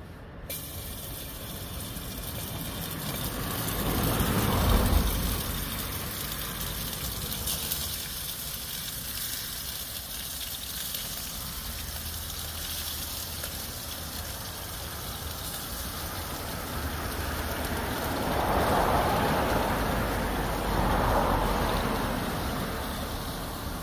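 Road traffic passing close by: a steady wash of tyre and engine noise, swelling as vehicles go past about four seconds in and twice more later on.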